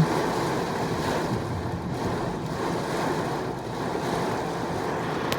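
Heavy rain pouring down in a steady hiss during a microburst thunderstorm, with wind on the microphone. A brief click sounds near the end.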